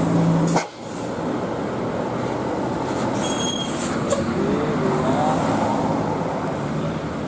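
Large tour bus going by close at hand, its engine running under steady rumbling road noise that swells a little in the middle and eases off near the end. The sound changes abruptly just under a second in.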